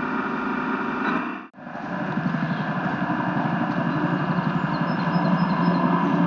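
Engine-like running from the RC model work boat, steady with a rapid low pulse that grows slightly louder. The sound drops out briefly about a second and a half in.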